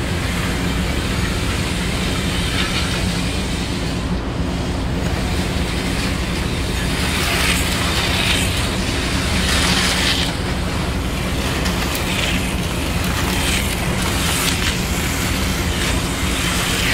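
HO-scale model train running on its track: a steady rumble with a constant electric hum. From about seven seconds in, several short rushing passes come and go.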